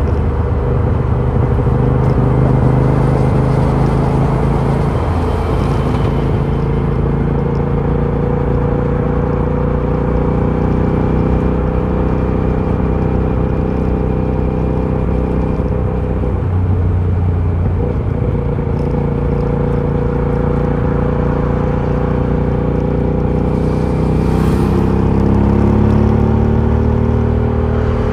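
Aprilia Shiver 750's V-twin engine running through its stock exhaust, holding fairly steady revs with a few pitch shifts, and the revs climbing near the end.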